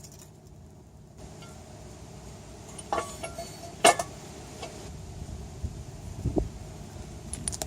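A few sharp metallic clinks and knocks of hitch bolts and hardware being worked into the car's frame rail, the loudest about four seconds in, over a low steady rumble.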